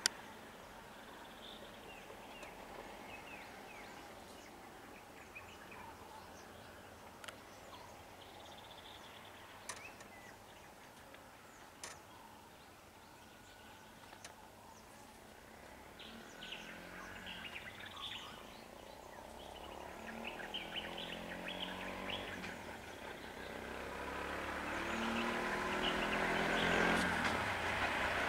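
Outdoor ambience with birds chirping and a few sharp clicks. In the second half a vehicle engine comes in and grows steadily louder as it approaches.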